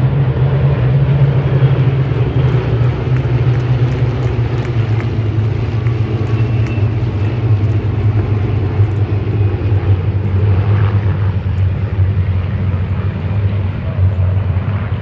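A formation of Spitfires taking off together, their V12 piston engines at full power in a loud, deep, steady rumble.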